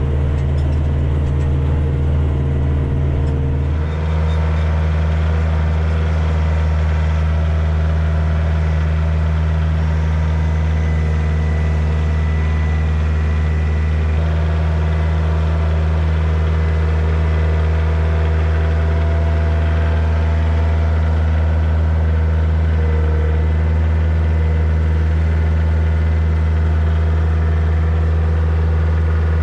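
Kioti DK40 diesel tractor engine running steadily under way. Its engine note steps up about four seconds in as it is throttled up, then holds steady.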